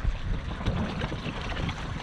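Uneven low rumble of wind buffeting the microphone, with water sounds, and no steady engine note.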